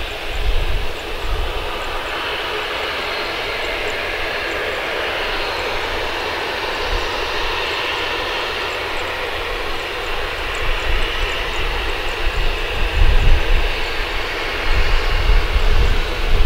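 Boeing 737-900ER's twin CFM56-7B turbofans running at low taxi power as the airliner backtracks and turns on the runway: a steady jet whine and hiss, with an uneven low rumble growing stronger in the last few seconds.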